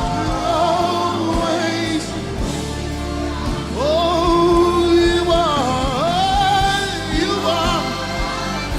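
Live gospel worship music: a voice sings long notes that glide and waver over held keyboard chords and a steady bass.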